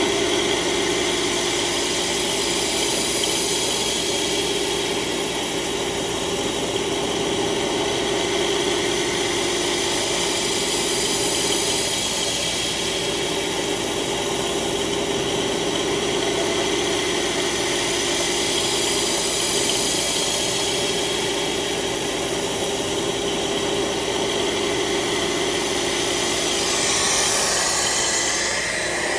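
Milling machine spindle running while an end mill circle-mills a hole, a steady machine tone under the cutting hiss, which swells and eases every several seconds as the cutter goes round. Near the end there is a brief rise and fall in the high hiss.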